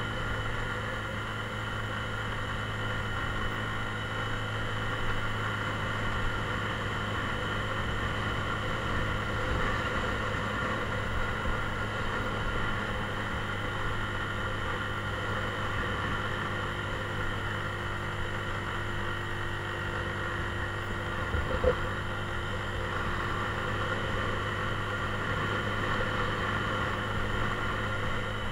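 Mondial Drift 125 motorcycle engine running at a steady pace while riding, a constant even hum with no revving up or down. A brief knock about three-quarters of the way in.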